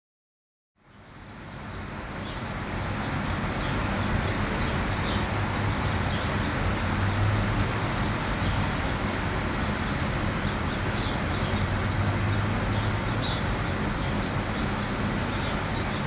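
Steady outdoor background noise with a low rumble, fading in about a second in, with a few faint high chirps.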